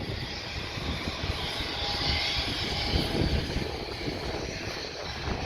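Steady engine drone from running machinery, with low rumbling that sounds like wind buffeting the microphone.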